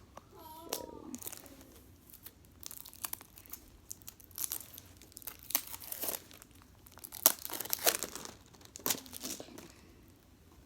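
Plastic packaging crinkling and tearing as it is unwrapped by hand, in short irregular bursts that grow busier from a few seconds in.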